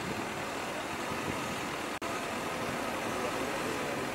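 A vehicle engine idling steadily under the steady hiss of a hose spraying water, with a brief dropout in the sound about two seconds in.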